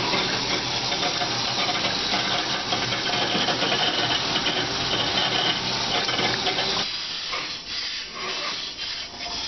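Steady rushing hiss of water flowing through the flow-control rig's piping and air-operated control valve. It drops sharply in level about seven seconds in, with a few light knocks after.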